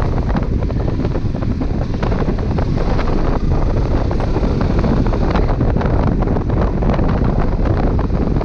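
Wind buffeting the microphone over a Honda Transalp 600's V-twin engine running steadily on a dirt track, with many small clicks and knocks from the ride over rough ground.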